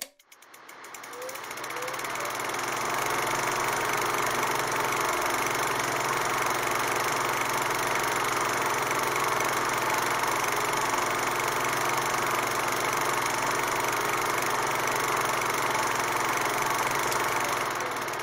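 A steady mechanical running noise with a low hum underneath, fading in over the first few seconds and fading out near the end.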